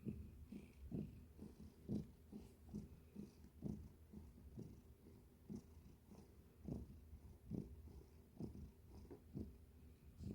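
Domestic cat purring, a low rumble that swells and eases with each breath, about once a second.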